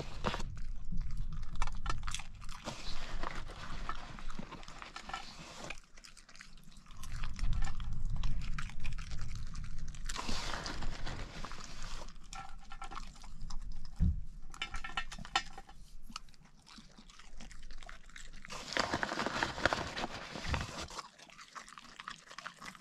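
A dog chewing and crunching on chips, in irregular bouts with short pauses.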